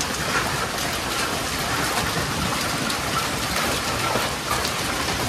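Heavy rain mixed with hail: a dense, steady hiss of downpour scattered with many small sharp ticks of hailstones striking the paving and canvas.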